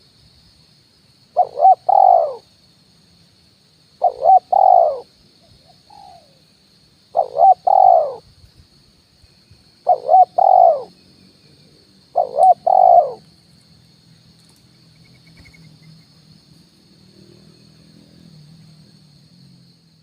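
Spotted dove (tekukur) cooing its 'kuk 1' lure call: five phrases about every two and a half seconds, each two quick notes and then a longer falling coo, stopping after about 13 seconds.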